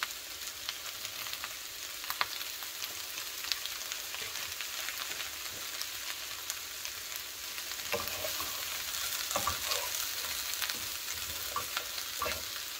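Chopped cabbage and bacon sautéing in a skillet with bacon grease and olive oil: a steady sizzling hiss. In the second half a spatula stirs and scrapes the pan with scattered clicks.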